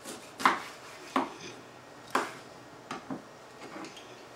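Kitchen knife halving limes on a wooden cutting board: a series of sharp, separate knocks as the blade goes through and strikes the board, the loudest about half a second and about two seconds in.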